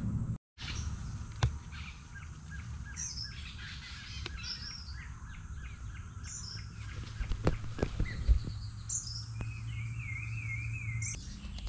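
Birds calling, with a high chirping phrase repeated about every three seconds and a warbling trill near the end. A few sharp knocks stand out over a steady low hum.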